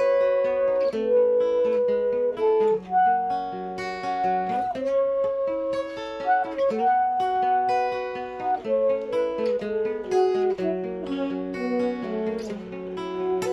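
Saxophone playing a slow melody of long held notes over strummed guitar chords.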